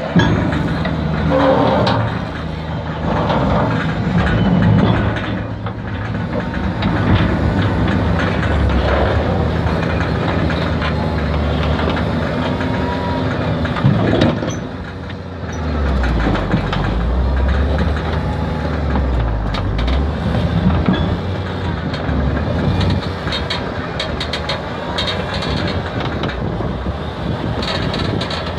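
John Deere 6170M tractor's diesel engine running steadily while it pulls a steel box scraper, with soil scraping and piling into the scraper's bowl and the scraper's steelwork rattling and clanking.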